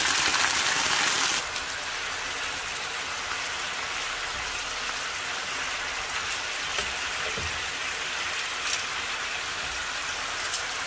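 Beef broth sizzling loudly as it is poured into a hot skillet of seared thin-cut beef, then, about a second and a half in, dropping suddenly to a quieter steady sizzle and bubble as the broth simmers around the meat.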